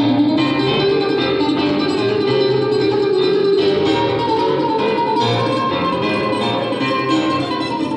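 A mandolin and a grand piano playing together: a steady stream of plucked mandolin notes over piano.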